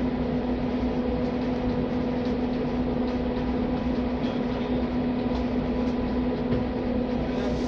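A steady machine hum with a strong low tone and a wash of noise, unchanging throughout.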